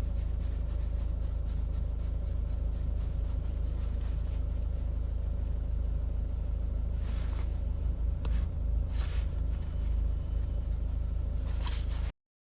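Steady low background rumble picked up by a phone microphone, with a few brief scrapes and rustles about seven to nine seconds in. It cuts off suddenly to dead silence near the end as the live stream stops.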